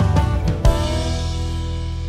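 Background music with drums and guitar: a drum hit about half a second in, then a held chord.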